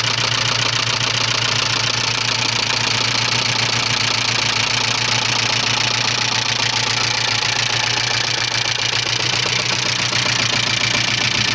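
Subaru EA82 flat-four engine of a 1985 Leone running steadily at an even speed, with a rapid, regular knock throughout. The owner does not know which part is knocking.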